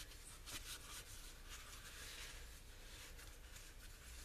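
Faint, soft rubbing of a paper towel wiping a thin metal stove part clean with brake cleaner.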